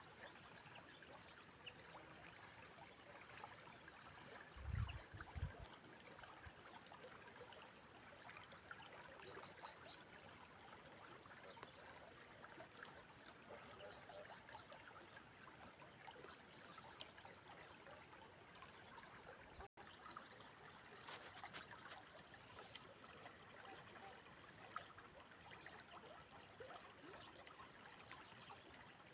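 Faint, steady rushing and trickling of a river. A few short high bird chirps sound over it, and two low thumps come about five seconds in.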